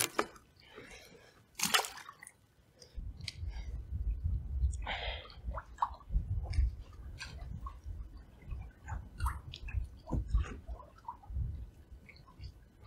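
Wind buffeting the microphone in low, gusty rumbles from about three seconds in, with scattered small clicks and knocks; a short splash near two seconds in.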